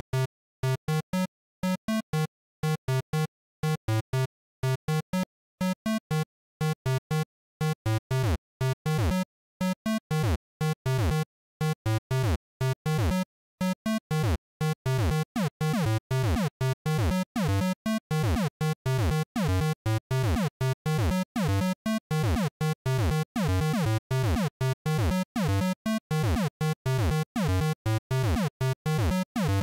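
PC-speaker-style chiptune made in BeepBox: a single square-wave beeper voice plays short, clipped notes with full silences between them, sparse at first and growing busier. From about halfway in, quick downward pitch slides are woven in among the notes.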